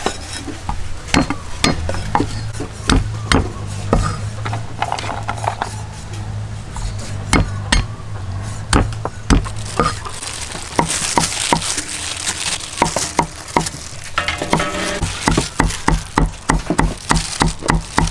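Steel cleaver chopping peeled garlic cloves on a wooden chopping block. The knocks are scattered at first, over a low hum, then become quick, even chopping at about four strokes a second in the last few seconds.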